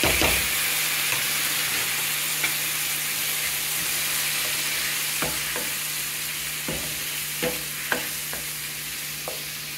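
Diced tomato sizzling as it hits hot oil in a frying pan with onion and jalapeño, a steady frying hiss that is loudest right at the start and eases slightly. A wooden spoon stirs and knocks against the pan several times in the second half.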